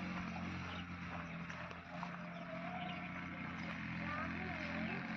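A steady low motor hum, with faint wavering calls starting near the end.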